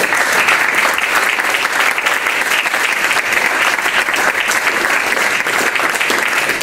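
Audience applauding: many hands clapping together in a dense, steady run.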